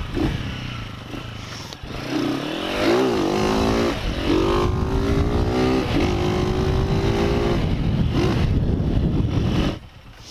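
A motorcycle engine pulls away and speeds up. Its pitch dips and climbs again about three seconds in, then holds steady, with wind rushing on the microphone. The sound drops away sharply near the end as the bike slows to a stop.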